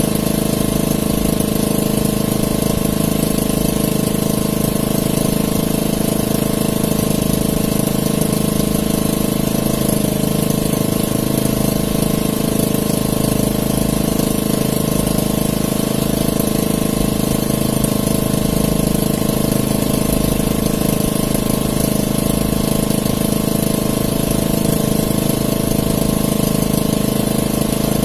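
Small engine aboard a motorized outrigger fishing boat, running steadily at one constant speed.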